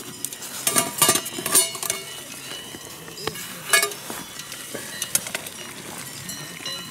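Metal Trangia camping cookware clinking and clanking as the lid, pot gripper and a pot of hot water are handled on the spirit stove. The clinks are separate and sharp, a handful over a few seconds, some with a short metallic ring.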